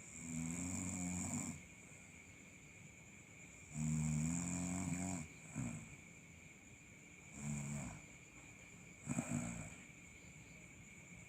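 Domestic cat snoring in its sleep: five irregular snores, the first two long, about a second and a half each, the last three shorter.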